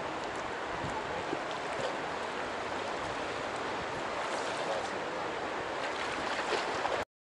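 Shallow river flowing, a steady rush of water that cuts off suddenly near the end.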